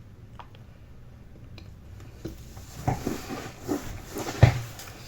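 Food-preparation handling noises while a croissant is filled with peanut butter: a few light clicks, then a run of scraping and knocking, with a heavy thump about four and a half seconds in.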